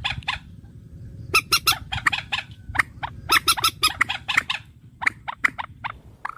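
A bird calling in quick runs of short, sharp notes, with several bursts about a second apart and a low steady background hum beneath.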